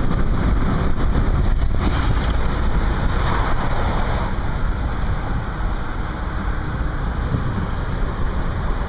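Cabin noise of a car cruising along: a steady low rumble of tyres and engine with a hiss of wind.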